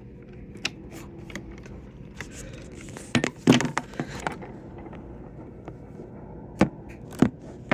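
Scattered sharp plastic clicks and knocks, a cluster of them about three seconds in, from handling filament being fed into a Bambu Lab A1 3D printer's AMS feeder, over a faint steady hum.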